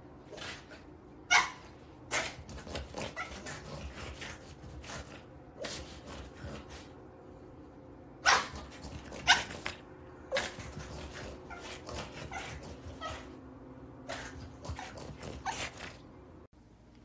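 Pied French bulldog giving a scattered run of short, sharp barks and yips. The loudest comes a little over a second in, and three more come between about eight and ten and a half seconds.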